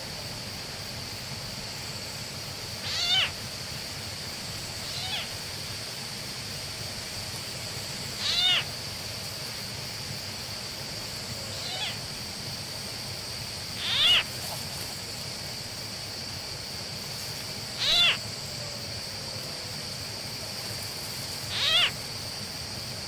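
An unseen animal calling over and over: short falling cries, each ringing with several tones, about every three to six seconds. Five are loud and two are fainter, over a steady high-pitched drone.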